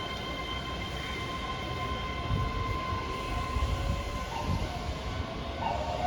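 Keihan electric train running: a continuous low rumble from the running gear with a few heavier low thumps, under a steady whine of several high tones. A faint pitch glide comes in near the end.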